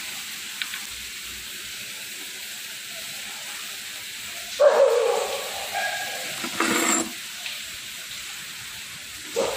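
Steady background hiss, with a short loud wavering sound about halfway through and a brief sharp clatter about two seconds later.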